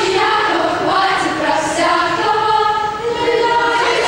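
Children's choir singing, holding sustained notes that move from pitch to pitch.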